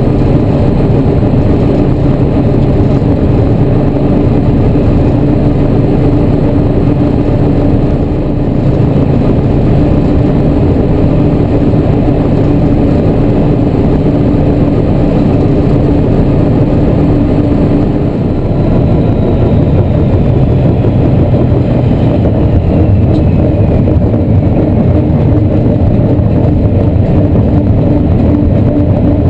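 A Class 14 diesel-hydraulic locomotive's engine running steadily under power, heard loud from inside its cab, mixed with the rumble of the moving train. The engine note dips briefly about eight seconds in and again about eighteen seconds in.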